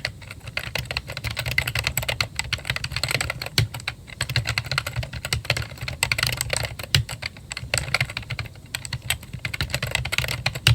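Apple A1048 keyboard being typed on quickly and continuously: a dense, uneven run of key clicks, with a few heavier strokes among them.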